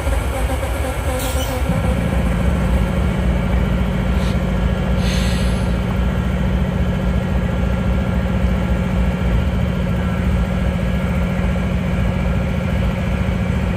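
Diesel locomotives of a freight train working, a steady low engine rumble with a drone that sets in about two seconds in. Two short hisses come through around the first and fifth seconds.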